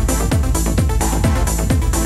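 Electronic dance music with a steady kick-drum beat.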